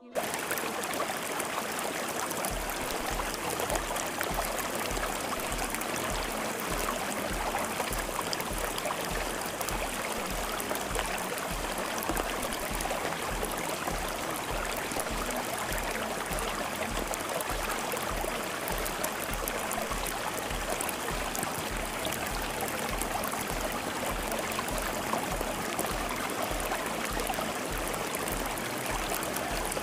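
Steady sound of running water, like a flowing stream. Beneath it, starting a couple of seconds in, there is a soft, low, regular pulse about twice a second.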